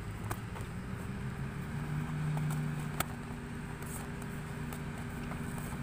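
Steady low hum of a motor vehicle engine running nearby. It rises slightly in pitch between one and two seconds in and is loudest a little after two seconds. A couple of sharp smacks of boxing gloves land, one right at the start and one about three seconds in.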